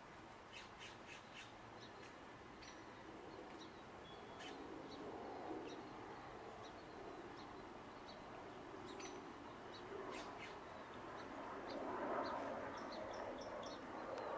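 Faint outdoor ambience: scattered short bird chirps and calls over a low, steady rush that grows slowly louder toward the end.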